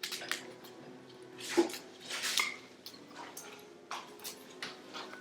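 A knife cutting the stems out of kale leaves: irregular sharp knocks and clicks, with the leaves rustling most loudly about two seconds in.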